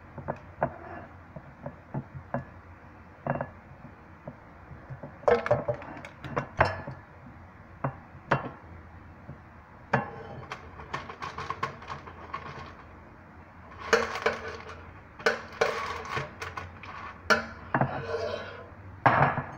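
Metal fork clinking and scraping against a food container and an air fryer basket as chicken drumsticks are forked out and dropped in: irregular clicks and knocks, sparse at first and busier in the second half.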